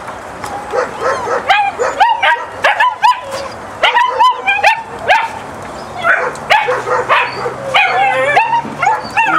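German Shepherd puppies whining and yelping: a steady run of short high-pitched cries that rise and fall, two or three a second.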